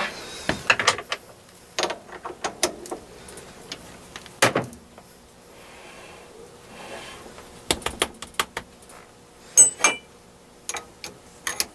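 Clicks and knocks of a metal lathe tailstock with a drill chuck being handled and slid along the lathe bed. There is a heavier knock about four seconds in, and a short ringing metal clink near the end.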